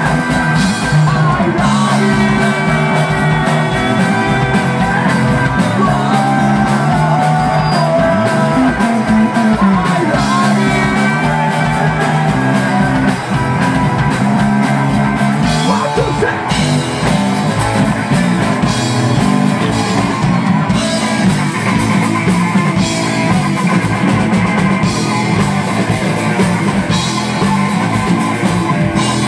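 Live rock band playing loud: electric bass, electric guitar and drum kit, with a man singing.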